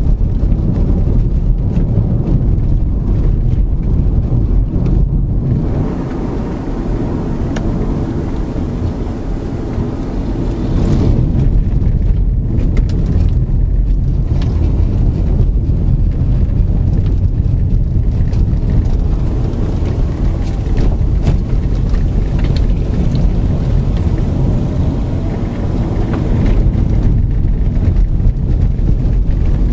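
Cabin sound of a 2006 Honda Accord automatic on the move: steady engine hum with tyre and road noise and some wind noise. It eases off for a few seconds, then builds again about eleven seconds in.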